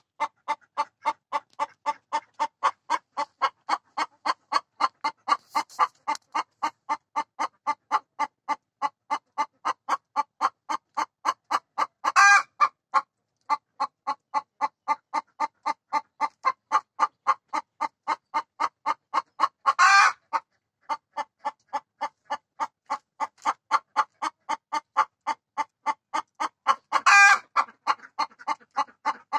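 Rhode Island White laying hen clucking steadily, about three short clucks a second, with a longer, louder call breaking in three times. It is the hen's pre-laying call, given as she gets ready to go onto the nest and lay an egg.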